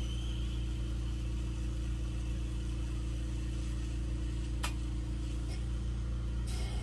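Steady low motor hum at a lampworking bench, with the electric mandrel spinner turning the mandrel while glass is wound on in the torch flame. A faint hiss sits over it, and a single sharp click comes about four and a half seconds in.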